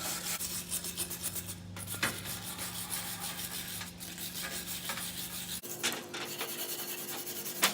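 Hand wire brush scrubbing loose rust off an old iron wrench, bristles scraping metal in quick repeated strokes.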